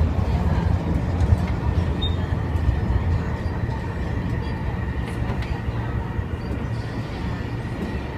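Cabin of an MTR East Rail line Metro-Cammell (MLR) electric train running along the line: a steady low rumble from the wheels and running gear. A faint, steady high whine becomes clearer about three seconds in.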